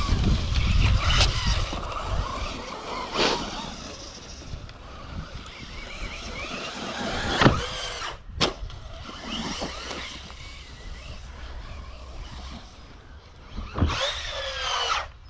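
Radio-controlled Traxxas Rustler VXL truck driving, its electric motor and drivetrain whining up and down in pitch as it speeds up and slows, with a few sharp knocks along the way.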